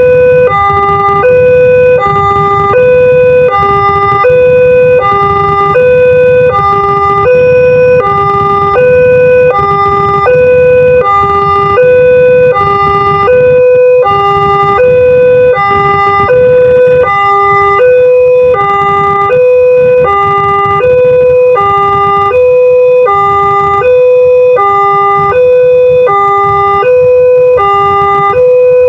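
Multec electronic level-crossing siren sounding its warning, a fairly fast alternation between a higher and a lower steady tone. It is the crossing's alarm that a train is approaching.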